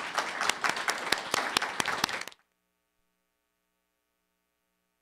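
Audience applauding, a dense patter of many hands clapping, that cuts off abruptly about two and a half seconds in, leaving near silence.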